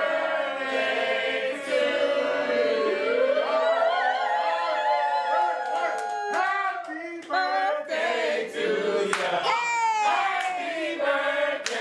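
A group of people singing together, with one voice holding long notes with vibrato.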